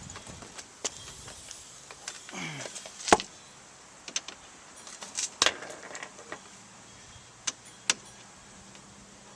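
Scattered sharp metallic clinks and taps of nuts and tools being handled at the strut bolts, the loudest about three seconds in.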